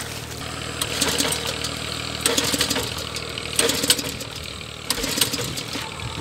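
Small engine of a water pump running steadily, with scattered sharp clatters over its drone.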